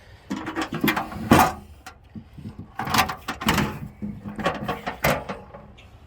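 Metal toolbox being handled, with clanks and scrapes of its sheet-steel lid and parts in three short bouts of clatter.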